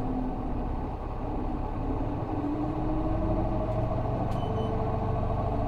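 Isuzu Erga city bus's 6HK1 inline-six diesel engine heard from inside the cabin, pulling steadily with its note rising slowly as the bus gathers speed.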